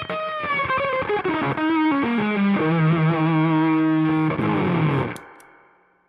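Electric guitar through a Velcro fuzz pedal: distorted notes held with a wavering vibrato, stepping down in pitch to a long low note. A little after five seconds it cuts off with a couple of clicks and dies away.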